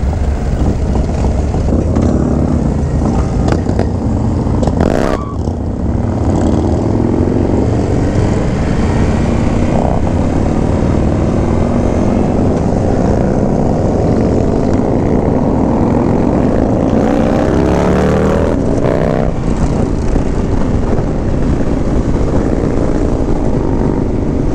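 Harley-Davidson V-twin motorcycle engine running under way, heard from the rider's seat, its pitch rising and falling as the rider accelerates and eases off.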